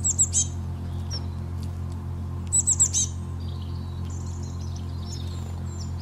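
A small songbird chirping: two quick bursts of about four high, falling chirps, about two and a half seconds apart, then fainter twittering, over a steady low hum.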